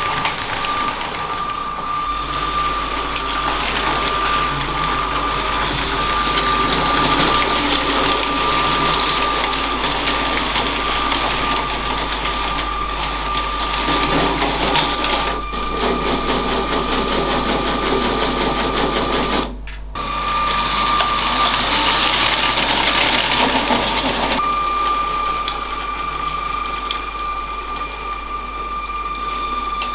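LEGO train's small electric motor running with a steady whine while the train travels along plastic track. The sound briefly drops out about 20 seconds in.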